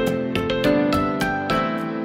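Background instrumental music with a steady, regular beat.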